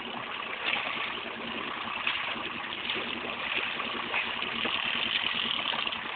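Small boat out on the sea: a steady rush of water and wind noise against the hull, with a faint steady hum underneath.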